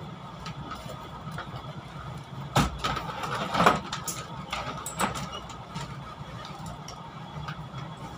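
Steady low hum inside a passenger train carriage standing at a station, broken about halfway through by a few sharp knocks and clatters, three in all.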